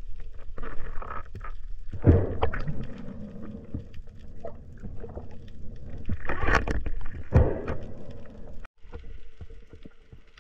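Muffled underwater sounds as a wooden speargun's rubber bands are stretched back and hooked onto the shaft: a low steady rumble with a few knocks and scrapes, loudest about two seconds in and again around six to seven seconds in. It cuts off abruptly near the end to quieter underwater ambience.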